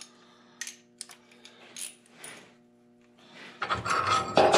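Light metallic clinks of hand tools and bolts being handled, a few separate taps in the first half, then a busier, louder spell of metal clattering from about three and a half seconds in.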